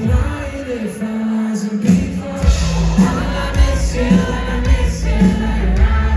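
Live pop-rock band playing with vocals. The bass and drums drop out just after the start, and the full band comes back in about two seconds in.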